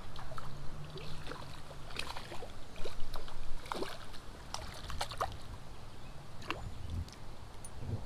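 A small redbreast sunfish splashing at the water's surface as it is reeled in on light line, several short splashes, the sharpest about three seconds in, over the steady run of the creek.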